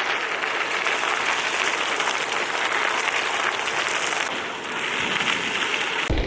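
Bicycle tyres rolling over gravel: a steady, dense crackling hiss. About six seconds in it cuts abruptly to low wind rumble on the microphone.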